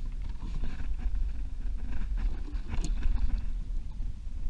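Water lapping against a plastic kayak hull under a low, uneven rumble of wind on the microphone, with a few light knocks about three seconds in.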